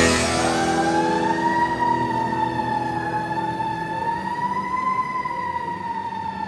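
A siren wailing slowly: its pitch climbs over the first couple of seconds, wavers up and down, then slowly sinks as it fades.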